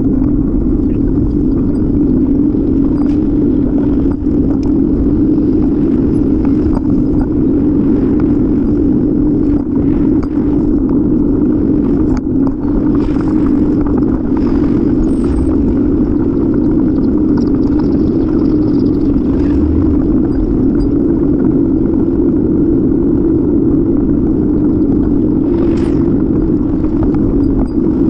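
Steady wind and road rumble on the microphone of a camera riding on a moving bicycle, loud and unbroken, with a few faint brief ticks.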